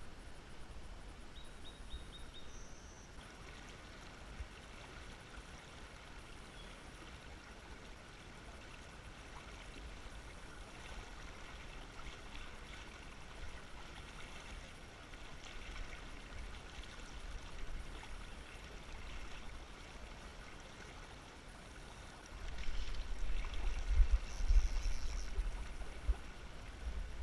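River current flowing steadily, with a low rumble on the microphone that grows much louder over the last few seconds.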